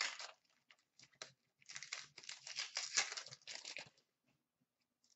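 Trading card packs and cards being handled: crinkling and rustling of wrapper and card stock, a short rustle at the start, another about a second in, then a denser crinkling for about two seconds before it goes quiet.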